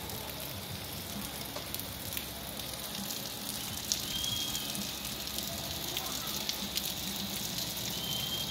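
Steady rain falling, an even hiss with scattered sharp drip taps. Two short high chirps, about four seconds in and near the end.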